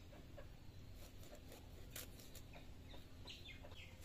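Faint scraping and cutting strokes as a fish is worked against a boti blade, with a hen clucking a few times near the end.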